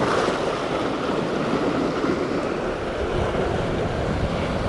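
Sea surf washing against shoreline rocks, a steady rushing noise, with wind on the microphone.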